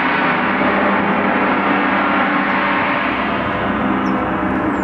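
Large Paiste gong played with soft, fluffy felt mallets, ringing as a continuous, dense wash of overtones at a steady level, with no single strike standing out.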